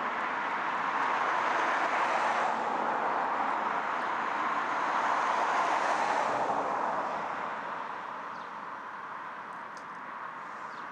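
Road traffic noise: passing vehicles' tyre hiss swelling twice and then fading away.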